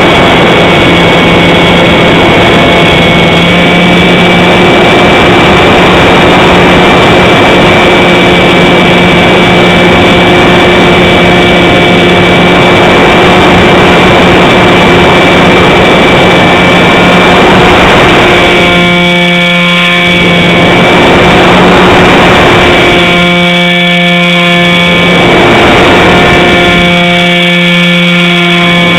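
The motor and propeller of an RC model plane run at a steady pitch, heard loud from a camera on the wing, with wind rushing over the camera. The wind noise drops away briefly three times in the second half while the motor note holds steady.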